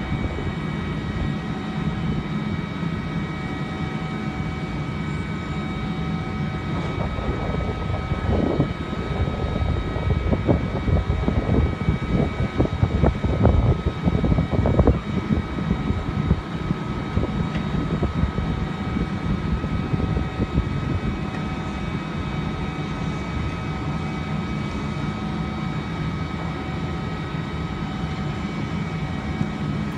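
Freight train rolling past at a distance: a steady low rumble, with a run of irregular knocks and rattles from about seven to fifteen seconds in.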